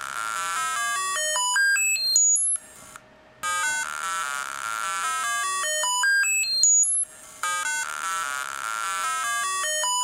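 Arduino-driven small loudspeaker playing square-wave tones at Fibonacci-number frequencies. Each note lasts about a fifth of a second. The notes start as a low buzz and climb in ever wider steps to a thin, very high tone, then the run starts over, repeating about every four seconds.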